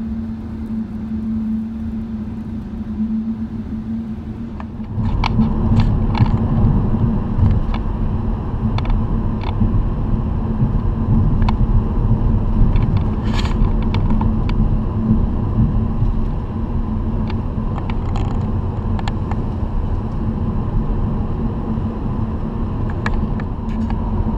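Road noise inside a moving car on a highway: a steady low rumble of tyres and engine with a held drone. About five seconds in it gets louder and scattered small clicks and rattles come in.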